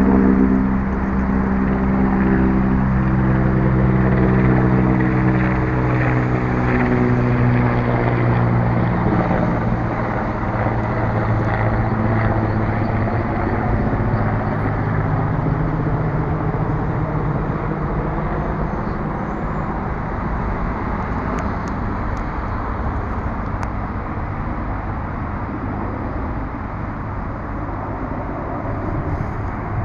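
Helicopter passing and moving away: a rotor and engine drone whose stack of tones slowly drops in pitch and fades over the first fifteen seconds or so, leaving a steady rumble.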